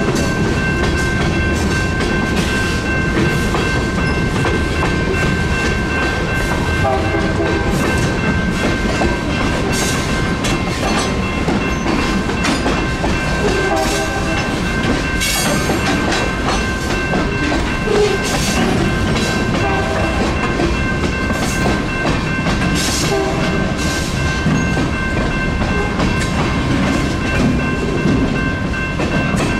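Freight cars rolling through a grade crossing, their steel wheels clacking over the rail joints and crossing with a steady rumble. Under it, a GS Type 2 electronic crossing bell rings continuously.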